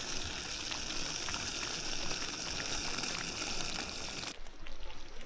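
Sausage balls sizzling in a pan on a camp stove: a steady hiss with faint crackling that stops abruptly near the end.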